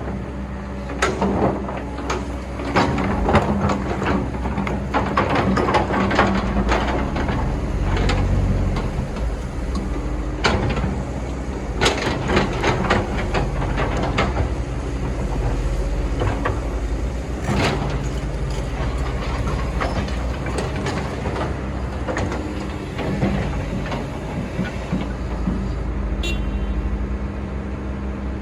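Excavator working, its diesel engine running steadily under frequent knocks and clanks from the bucket and arm as it digs sand.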